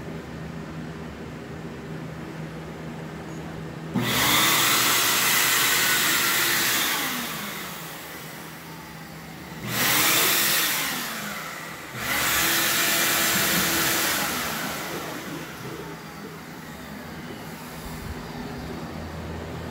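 Corded electric leaf blower pressed into a floor drain, switched on three times in short bursts to force air down a clogged sewer pipe: each burst starts suddenly with a loud rush of air and motor whine, then winds down. A steady low hum lies underneath between the bursts.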